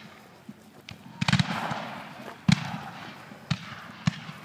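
Black-powder gunfire from a reenacted Civil War battle, heard from afar: a ragged cluster of shots about a second in with a long echo, then single sharp reports roughly once a second.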